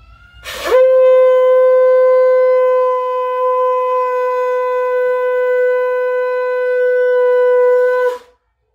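Conch shell (shankh) blown in one long, steady note for about seven and a half seconds. It starts with a short rising attack about half a second in, holds one pitch, and cuts off about eight seconds in. It is blown to close a Hindu puja.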